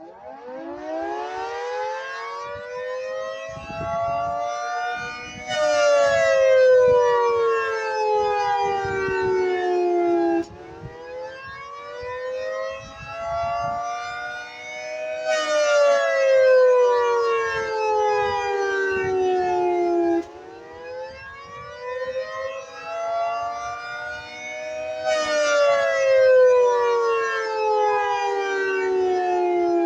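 Federal Signal 3T22 outdoor warning siren sounding the attack signal. It winds up from a low pitch and then wails up and down, rising for about five seconds and falling for about five, with the sound swelling louder each time it turns down in pitch.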